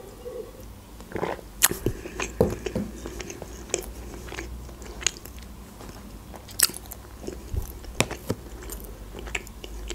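Close-miked mouth sounds of eating: a swallow of water at the start, then scattered sharp wet clicks and smacks of the lips and tongue.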